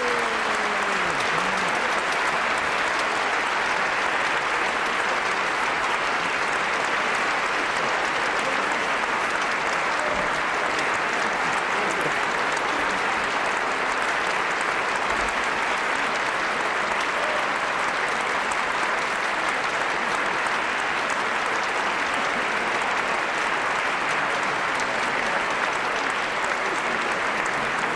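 A large concert audience applauding, a steady, unbroken clapping from the whole hall.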